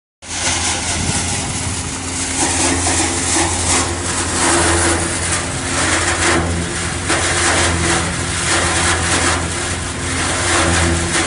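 Tractor engine running steadily, driving a PTO-powered straw blower that sucks threshed wheat straw in through its hose and blows it up a pipe into a trolley. A constant low engine hum lies under a loud, even rush of air and straw.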